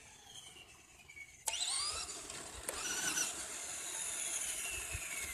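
Traxxas Slash RC truck's electric motor whining as it launches far off: a sudden, sharply rising whine about a second and a half in, then a long whine that slowly falls in pitch as it runs toward the camera.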